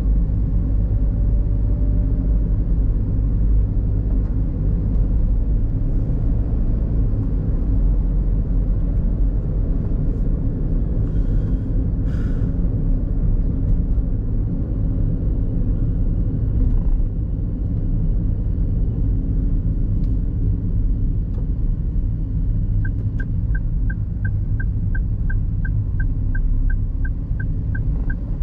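Steady low rumble of road and engine noise heard inside a moving car's cabin. About 23 seconds in, the car's turn-signal indicator starts ticking, fast and even, about three ticks a second.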